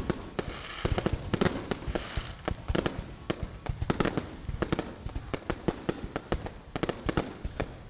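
Aerial fireworks bursting overhead: a rapid, irregular run of sharp bangs with crackling between them.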